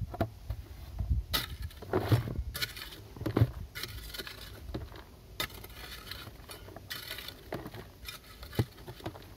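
Short-handled hand hoe chopping and scraping into crumbly vermiculite rock, giving irregular knocks and scrapes a second or so apart as loose rock is dug out.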